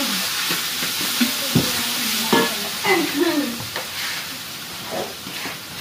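Food sizzling and frying in a large metal wok, with a metal spatula stirring and scraping against the pan in irregular strokes.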